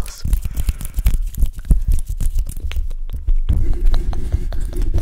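Close-mic hand and nail sounds on a condenser microphone: rapid clicks and scratches of long nails, then, about three and a half seconds in, hands cupped over the grille give a muffled rubbing rumble.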